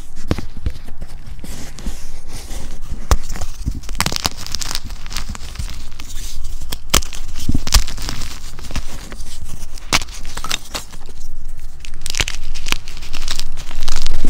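Hands crumbling and crushing blocks of chalk over a bin of loose chalk powder: dry crunching with many sharp cracks and snaps, and a rustle of powder between them, louder near the end.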